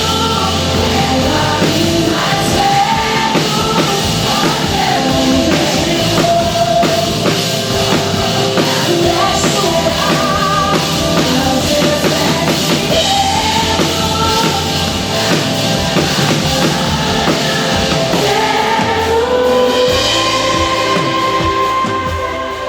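Gospel worship song with sung vocals over a band with drum kit and a steady beat, fading out near the end.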